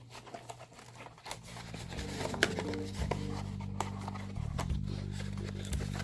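Faint rustling and small clicks of packaging being handled, then background music fading in about a second and a half in, with low sustained notes that change every second or so.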